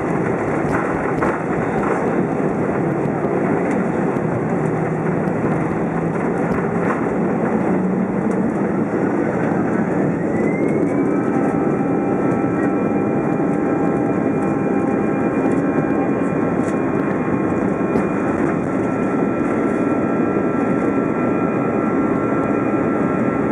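Airbus A320 jet engines heard from inside the cabin, spooling up for takeoff: a whine rises steeply about nine seconds in, then holds at a steady pitch over a constant rushing roar as the airliner accelerates down the runway.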